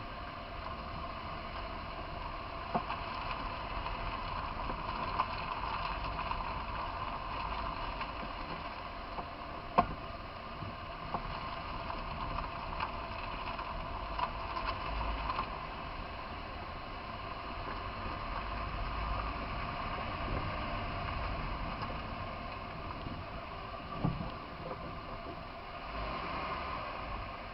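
Steady running noise broken by a handful of sharp pops at irregular intervals, the loudest about ten seconds in.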